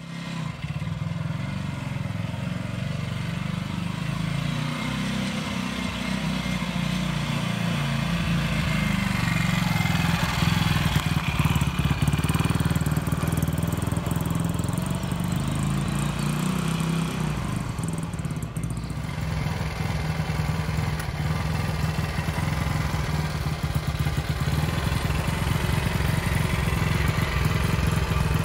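Ducati Monza Junior 160's single-cylinder four-stroke engine running as the motorcycle is ridden, its note rising and falling with the throttle. About two-thirds of the way through it changes to a steady idle.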